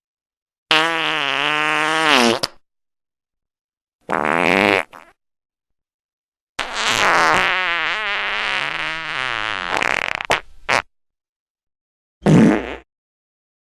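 A run of fart sound effects separated by silence: a drawn-out one of about two seconds, a short one, then a long one of about four seconds that wobbles up and down in pitch, followed by two short ones near the end.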